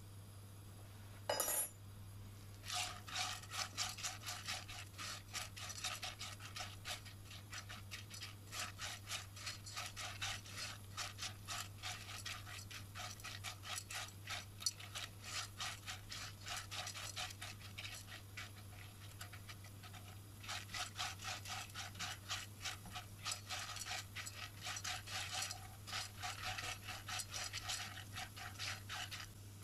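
Dry popcorn kernels being stirred around a coated pot with a silicone spatula: a fast, continuous rattling and scraping of kernels against the pot base, briefly easing off about two-thirds of the way through, over a steady low hum. The kernels are heating in oil and salt, not yet popping.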